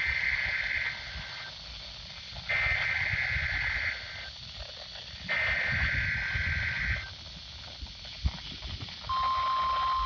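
Emergency Alert System SAME header from a Midland NOAA weather radio: three bursts of high two-tone digital data screech, each about a second long and about a second and a half apart. About nine seconds in, the steady 1050 Hz weather radio warning alarm tone starts, the signal that a warning-level alert (here a tornado warning drill) follows. Wind rumbles on the microphone underneath.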